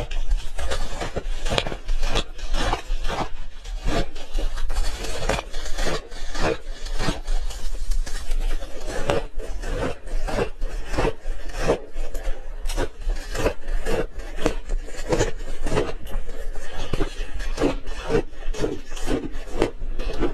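Close-up chewing and crunching of ice in the mouth: a rapid, unbroken run of crunches.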